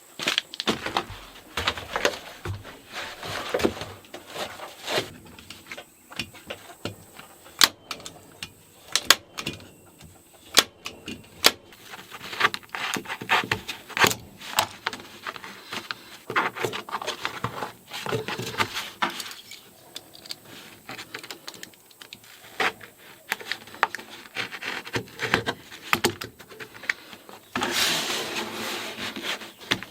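Hands working sheet vinyl flooring: rustling and scraping of the vinyl, broken by many sharp clicks and snaps. A few loud single snaps, typical of a staple gun, come between about 8 and 12 seconds in, and a longer rustle of the sheet comes near the end.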